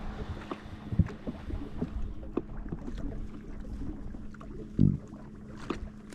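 Wind buffeting the microphone on a fishing boat, with a low rumble, a steady low hum and two short thumps, about a second in and near the five-second mark.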